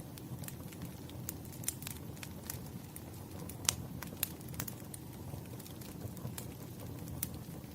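Firewood burning: a steady low rumble of flame with irregular crackles and pops, one sharper pop about halfway through.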